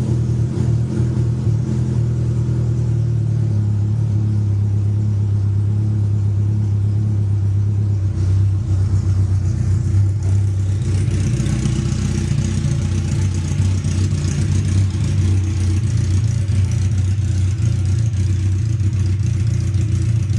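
1998 Suzuki Katana 750's inline-four engine running loud and steady with its muffler removed, leaving only a short open pipe, not yet fully warm. About eleven seconds in, a hissing sound joins higher up.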